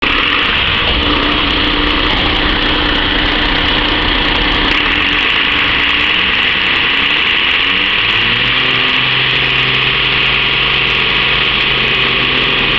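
A MAN water ladder fire engine's diesel engine running steadily. Its pitch climbs for a few seconds about halfway through, then holds at a higher, steady speed.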